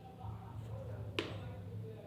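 Faint steady low electrical hum with a single sharp click a little over a second in.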